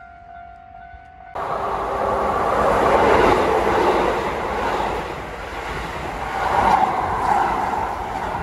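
Level-crossing warning signal sounding with steady tones, then an abrupt cut about a second and a half in to a Keisei electric commuter train passing at close range: a loud steady rush of wheels and running gear on the track that swells twice.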